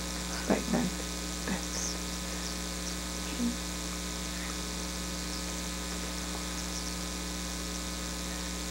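Steady electrical mains hum made of several level tones, with a few brief soft sounds in the first two seconds and another around three and a half seconds in.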